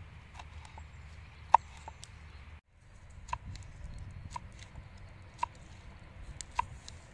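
Kitchen knife slicing chili peppers on a wooden cutting board: single sharp knocks of the blade against the board, about once a second.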